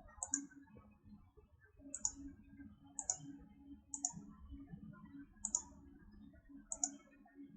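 Computer mouse button clicking, six sharp clicks spaced about a second apart, each a quick press and release, over a faint steady hum.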